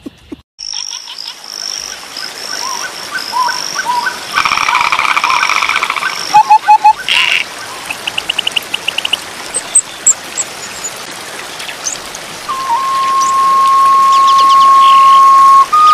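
Pondside chorus of frogs, insects and birds calling: chirps, trills and croaks overlapping. A long steady whistled tone comes in about three-quarters of the way through.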